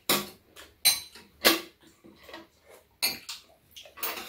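Metal spoons and chopsticks clinking and scraping against ceramic soup bowls during a meal, about five sharp clinks a second or so apart.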